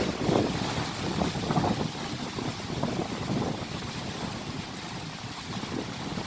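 Typhoon wind gusting hard, buffeting the microphone in irregular surges. The gusts are strongest in the first couple of seconds and ease toward the end.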